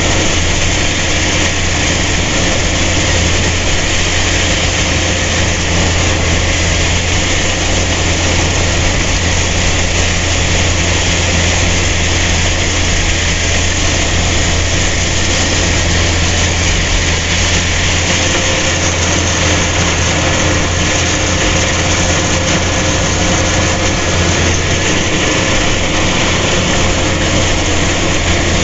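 Engine of a rice harvesting machine running steadily, a constant low hum with a dense hiss over it and no change in speed.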